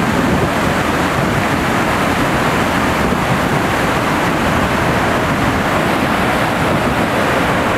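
Steady, loud rushing of a large waterfall in full flood and the whitewater torrent below it, crashing over the rocks.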